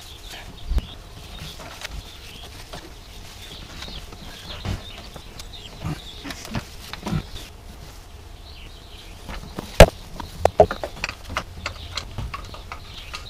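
Scattered clicks and knocks as a valve cover is set back onto the cylinder head of a BMW N62 V8 and worked into place by hand. The loudest knock comes about ten seconds in, followed by a short cluster of smaller ones.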